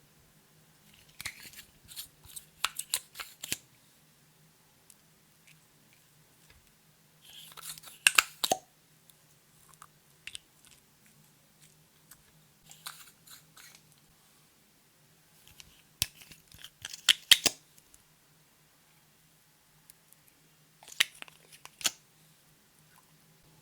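Slime being pressed and stretched by hand, giving five bursts of sticky crackles and clicks a few seconds apart, with quiet in between.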